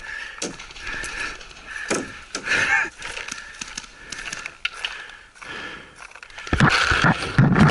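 Scattered sharp pops and knocks during a paintball game, with a louder clatter of gear and movement close to the microphone from about six and a half seconds in.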